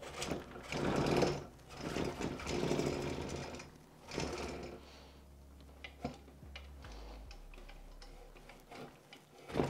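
Monitor arm's collar being slid and wiggled down a metal mounting pole: rattling metal-on-metal scraping in several bursts, the loudest about a second in and around three seconds in.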